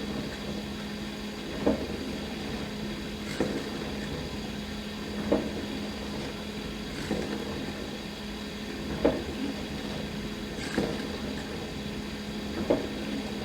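Dishwasher running mid-cycle: a steady pump hum with water spraying inside, and a short louder surge of water about every two seconds.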